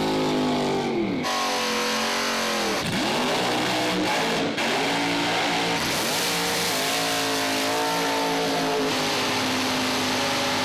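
V8 drag-car engines revving hard in quick edited cuts, the pitch dropping and climbing several times. Near the end a steady hiss runs under the engine note during a tyre-smoking burnout.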